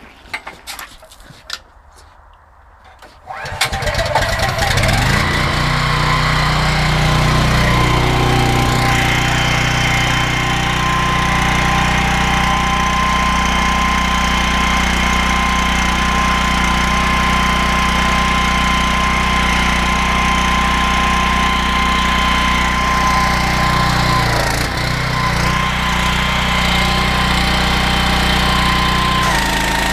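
Honda GX390 petrol engine of a pressure washer starting about three seconds in, after a few clicks and knocks, then running steadily with the pump under it. Its note dips briefly about three-quarters of the way through.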